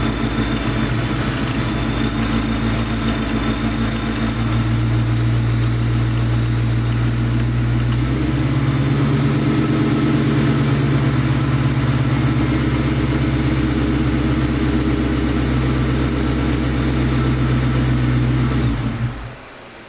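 Ford Mustang GT's V8 engine idling with a rapid, even, high-pitched chirping tick over it. This is the noise that comes with the A/C switched on, which the owner suspects is the A/C compressor after new idler pulleys and a new alternator did not cure it. The engine shuts off near the end.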